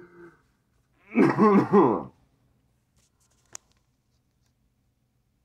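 A man's voice: one short vocal noise about a second in, lasting about a second, followed a couple of seconds later by a single sharp click.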